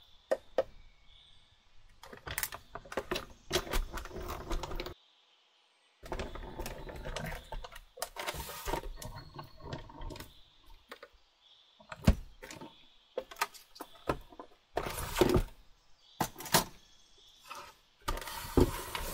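A die-cutting machine rolling a plate sandwich of metal letter dies and thick watercolour paper through its rollers, with irregular clicking and clattering of the plates and paper being handled. The sound cuts out completely for about a second midway.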